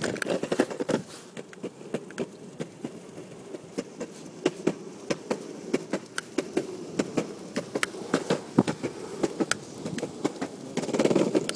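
Longboard wheels rolling on a concrete path, a steady buzzing rumble, with many sharp clicks as the wheels cross the joints between the slabs.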